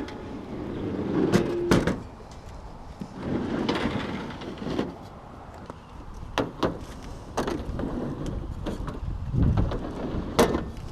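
Scattered knocks, clunks and shuffling from heavy vending machines being carried and handled for loading into a truck.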